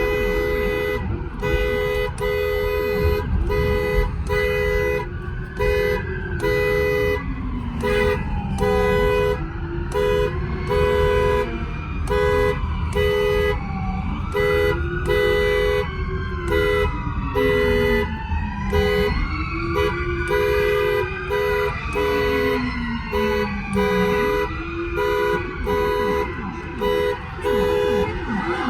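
A vehicle horn sounding in repeated short blasts, about one and a half a second. From a few seconds in, several emergency-vehicle sirens wail over it, their pitch rising and falling and overlapping.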